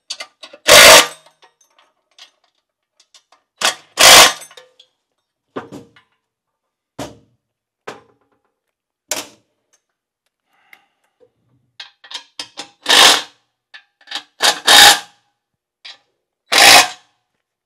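A DeWalt cordless driver running in short bursts, each under a second with pauses between, as it tightens the bolts holding the shaft bearings to a Koenders windmill compressor housing.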